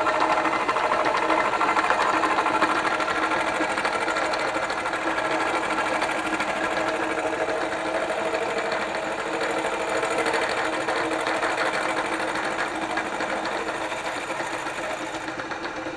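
Milling machine running, its cutter taking a light first pass across the pitted, heat-eroded face of an engine manifold: a steady mechanical hum with many tones that grows slightly quieter toward the end.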